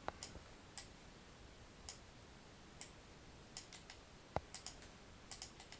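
About a dozen faint, irregularly spaced clicks from typing and clicking at a computer keyboard and mouse, one sharper click about two-thirds of the way through.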